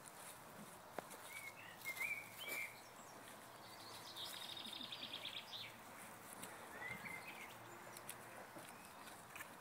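Small songbirds calling outdoors: short warbled chirps about two seconds in and again near seven seconds, and a fast high trill lasting about a second and a half in the middle.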